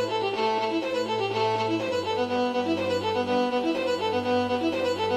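Instrumental background music: a quick, repeating melody of short notes over a held low note that steps to a new pitch about two seconds in.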